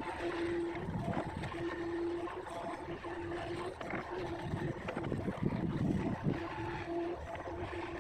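Hitachi long-reach excavator working: its engine runs with a steady whine that breaks off and comes back every second or so, and a heavier rumble swells about five and a half seconds in.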